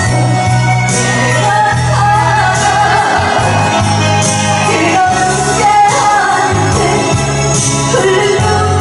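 A song sung live into a microphone with echo, over a loud amplified backing track with a steady bass line.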